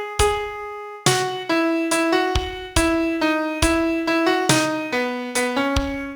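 A piano sound effect plays a song melody one note at a time, about two notes a second, each note struck and left to fade. Lower bass notes sound under some of the melody notes.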